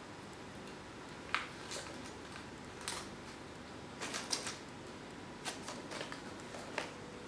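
Paper receipt crinkling and rustling as a kitten bats it and carries it in its mouth across a tiled floor: scattered short crisp clicks and rustles, with a quick cluster about four seconds in.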